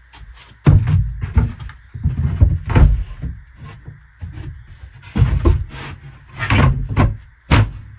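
Irregular series of loud wooden knocks and thumps as a plywood bench piece is pushed and wedged into place against the van's wall framing.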